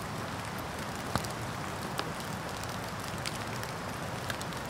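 Small wood campfire crackling, with scattered sharp pops, the loudest about a second in, over a steady hiss.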